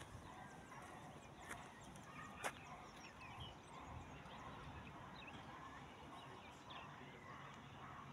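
Faint outdoor ambience with scattered distant bird calls, and a single sharp click about two and a half seconds in.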